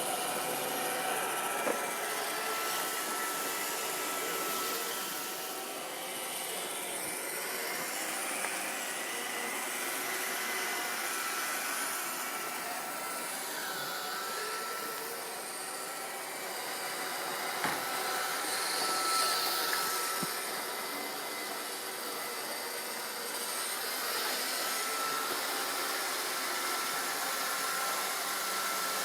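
iRobot Roomba 531 robot vacuum running: a steady whirr from its vacuum motor and brushes with a faint whine that comes and goes. A few sharp clicks or knocks stand out now and then.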